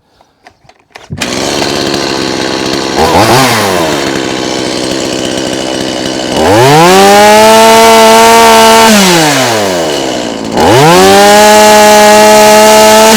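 Stihl MS180C two-stroke chainsaw starts up about a second in, idles with a short blip of throttle, then is revved to full throttle twice, dropping back to idle in between. The chain is being run at speed to check that the bar oiler is oiling.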